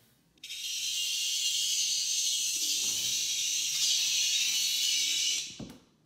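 A cicada buzzing loudly and harshly, the distress buzz of a cicada being caught by a cat. It starts abruptly about half a second in and cuts off just before the end, followed by a soft thump.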